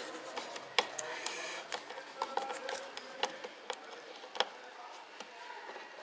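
Screwdriver and fingers working the plastic clips and fasteners of a car heater housing: scattered small clicks and scrapes of metal on hard plastic, about eight sharp clicks spread irregularly.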